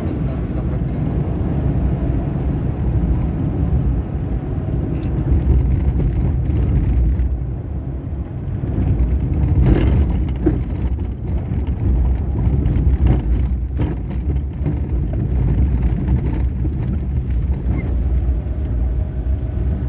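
Car driving on a rough, potholed dirt road, heard from inside the cabin: a steady low rumble of tyres and engine, with a few knocks and rattles from the bumps.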